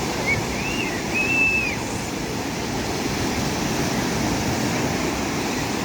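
Sea surf: a steady rushing wash of breaking waves. About a second in, a short high whistle-like call rises and falls twice over it.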